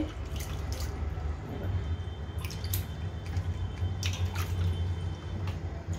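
Hands rinsing and rubbing crab pieces in a steel bowl of water: scattered small splashes, drips and wet squelches, over a steady low hum.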